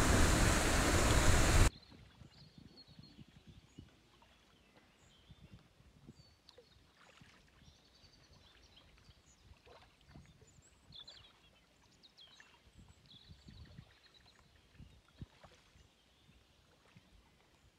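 Loud rush of river water past a kayak's bow in a shallow riffle, cutting off suddenly under two seconds in. Then a calm river with faint bird chirps.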